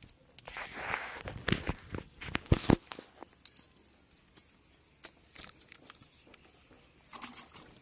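Rustling and crackling of a cast net being handled as fish are picked out of it on grass, with a dense run of sharp clicks and thumps in the first few seconds, then scattered clicks and a short burst near the end.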